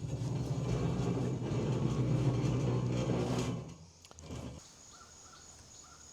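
A motor vehicle's engine running with a steady low hum, cutting off abruptly partway through, with a brief second burst just after. Insects trill steadily once it stops.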